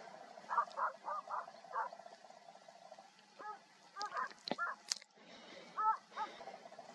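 Hunting dogs barking at a distance, a string of short, separate barks as they hold a wild boar at bay, with a few sharp clicks about four and a half seconds in.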